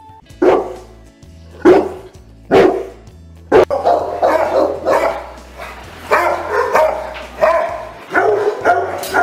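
Bullmastiff barking: four single barks about a second apart, then a quicker run of barks.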